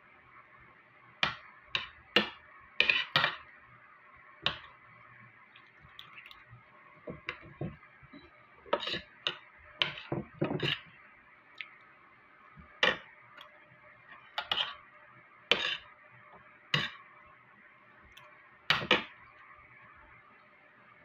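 Close-up eating sounds of rice and kangkong eaten by hand: scattered short smacks of chewing and clinks of hands and food on plates, coming irregularly. A faint steady hiss lies underneath.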